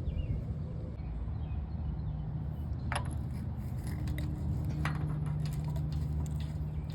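Light metallic clinks and taps of hand tools and brake parts being handled during a brake job. There is a sharp clink about three seconds in and another near five seconds, then a run of small ticks, over a steady low hum.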